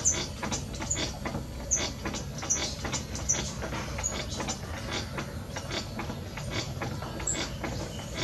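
Potter's wheel running: a steady low rumble with continual light mechanical clicking and rattling, and a short high squeak repeating a little under once a second during the first half.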